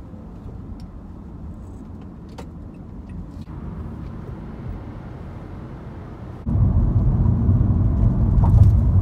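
Car driving, heard from inside the cabin: steady road and engine noise, which steps up suddenly about two thirds of the way in to a much louder low rumble of tyres at highway speed.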